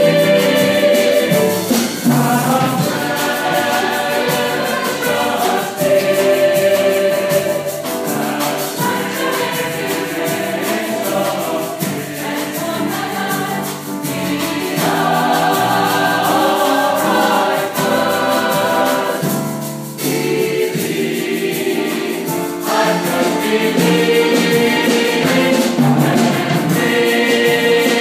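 Salvation Army songster brigade, a mixed choir of men's and women's voices, singing a gospel song in parts, with a light percussion beat ticking steadily underneath.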